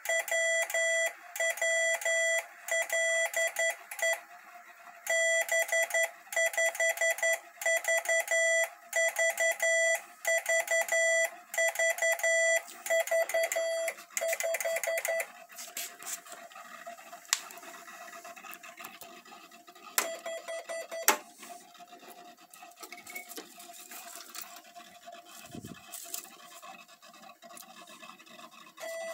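Morse code from a Hell Morsegeber, a punched-paper-tape Morse transmitter, sent as a steady 660 Hz tone keyed on and off in regular dots and dashes. About fifteen seconds in the keying stops, leaving a few sharp clicks and the rustle of the paper tape being handled.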